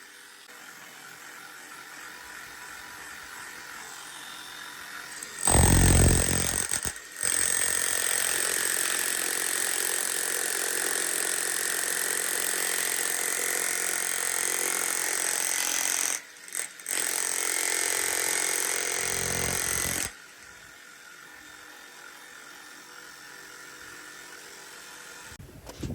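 A handheld power tool running steadily at work for about fourteen seconds, with a high whine over its noise. It starts with a loud low burst, cuts out twice briefly near the end of the run, then stops.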